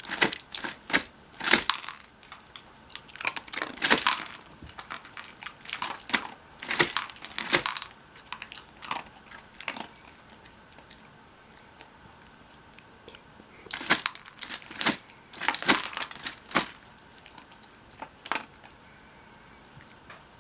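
Gumball-style dog treat dispenser being worked by dogs: irregular plastic clacks and rattles as treats drop into the tray, mixed with a dog crunching and nosing at them. The noise comes in clusters, with a quieter lull near the middle.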